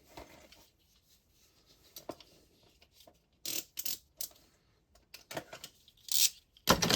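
Toy accessory packaging being opened by hand: a series of short crinkles, rustles and scrapes, with louder bursts about three and a half seconds in and again near the end.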